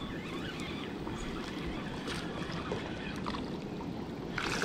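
Steady low rushing noise, with a few faint clicks and a brief louder rustle near the end.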